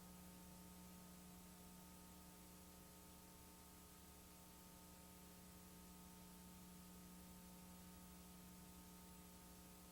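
Near silence: faint steady electrical hum and hiss.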